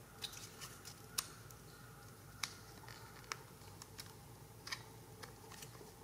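Faint, scattered clicks and small scrapes of a screwdriver tip against the plastic housing of a BMW E36 ASC throttle actuator as a small cover is pried off, about one click a second.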